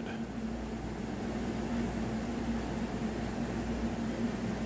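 Steady low background hum and hiss of room noise, unchanging throughout.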